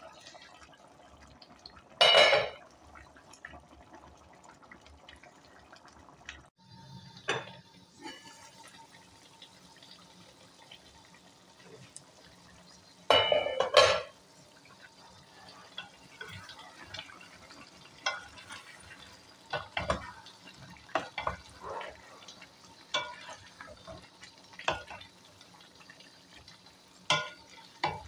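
Two loud clatters of metal on metal from the aluminium cooking pot and its lid. From about halfway on, a spatula scrapes and taps irregularly against the pot as chicken karahi is stirred, with the curry faintly sizzling underneath.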